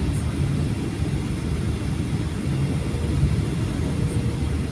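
Steady cabin noise of a Boeing 737-800 in flight, a low, even rush of CFM56 engine and airflow noise heard from inside the cabin at a window seat, during the descent toward landing.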